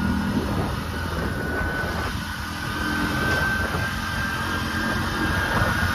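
Engine and road rumble of a moving vehicle, steady throughout, with a faint steady whine above it from about a second in.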